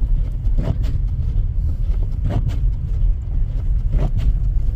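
Car driving: a steady low rumble of engine and road noise, with a short swish repeating about every two seconds.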